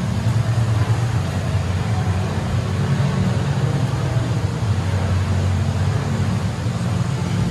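Steady low rumbling hum, with no speech over it.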